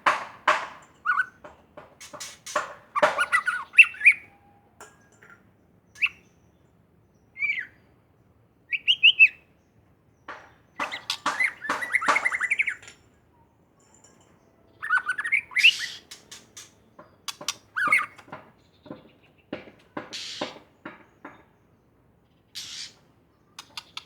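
White-rumped shama (murai batu) singing in bursts of varied song: short gliding whistles mixed with rapid clicking rattles, broken by pauses of a second or two between phrases.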